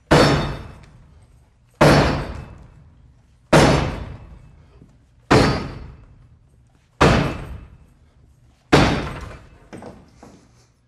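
A 38-pound steel battering ram slamming into a locked door six times, about one blow every 1.8 seconds, each hit ringing out and dying away. A few lighter knocks follow near the end.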